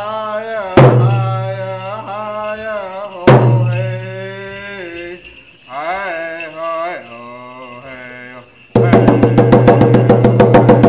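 A man singing a chant-like song to a hand drum struck with a beater: single accented beats at first, then, about nine seconds in, a fast steady drumbeat. The metal jingles on the dancer's dress jingle with her steps.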